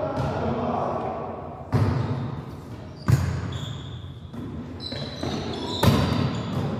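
A volleyball rally in a gym: three sharp hits of the ball, about a second and a half in, about three seconds in and near six seconds, each echoing in the hall. High squeaks of sneakers on the court come between the later hits.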